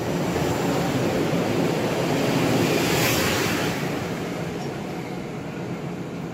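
Metro-North M3A electric multiple-unit train departing and passing close by: a steady rush of wheels and running gear on the rails, loudest about three seconds in, then easing off as the last car draws away.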